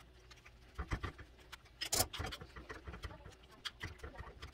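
Hand-held metal bean masher mashing cooked beans and chorizo in a stainless steel pot: irregular soft squelches and knocks, the loudest about two seconds in.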